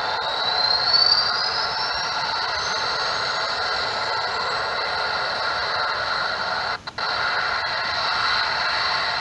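Recorded jet turbine sound played through the small speaker of a scale model jet's lighting and sound kit: a whine rising in pitch over a steady rushing noise. About seven seconds in the sound briefly cuts out, a dropout fault of the kit's sound module.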